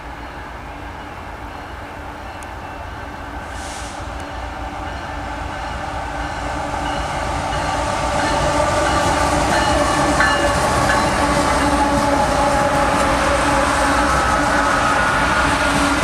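BNSF diesel-electric locomotives leading a slow-moving mixed freight train approach and pass close by. Their engine and rail noise grows louder over the first half and then holds steady as they go by.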